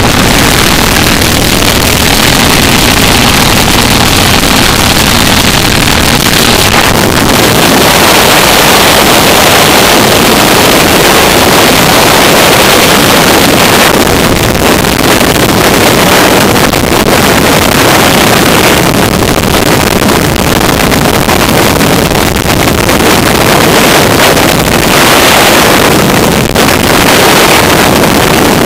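Wind noise in skydiving freefall: a loud, steady rush of air blasting across the camera's microphone.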